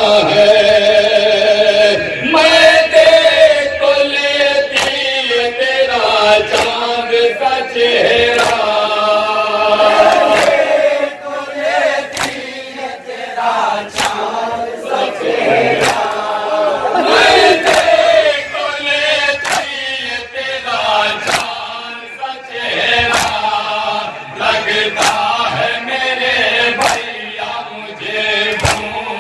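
Shia nauha chanted by a male lead voice over a microphone, with a group of men chanting along. From about two seconds in come sharp slaps about once a second, in time with the chant, from the mourners beating their chests (matam).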